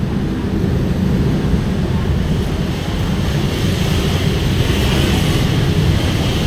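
Steady low rumbling noise with a fainter hiss above it, holding even throughout.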